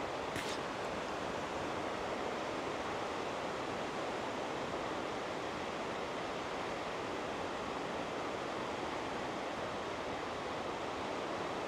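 Steady wash of low surf on a flat sandy beach, an even rushing hiss, with one brief faint high chirp just after the start.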